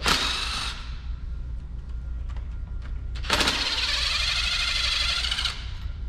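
Power driver running in two bursts as screws are backed out: a short spin at the start, then a longer, steady run of about two seconds from about three seconds in.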